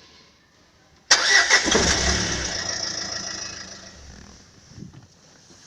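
Renault Scenic 3's 1.5 dCi diesel engine cranking and starting about a second in, the sound fading over the next few seconds. No squeak from the exhaust is heard on starting: the worn sealing ring between the catalytic converter and the downpipe has been replaced.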